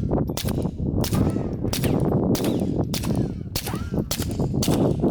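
Suppressed .22LR shots from a Walther PPK/S semi-automatic pistol with a Quiet Bore suppressor: about eight sharp cracks fired at a steady pace, roughly one every 0.6 s, over a steady low rumble.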